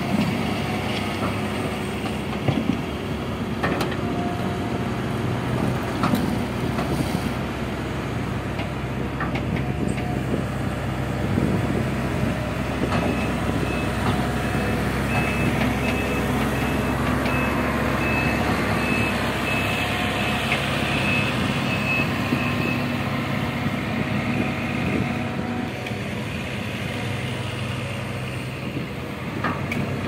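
Diesel engines of a Caterpillar backhoe loader and a 325B tracked excavator running steadily under work, with occasional knocks. In the middle a reversing alarm beeps at an even rate for about ten seconds.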